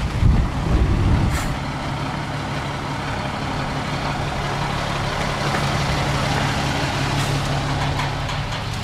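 Army truck's engine running steadily under load as it drags a pickup up onto a trailer by a strap. It is louder and rougher for the first second and a half, then settles into a steady hum.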